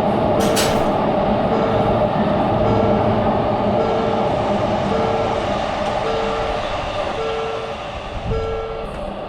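Japanese level-crossing electronic warning bell ringing about once a second while an electric train runs past. The train's running noise slowly fades, and there is a brief sharp hiss about half a second in.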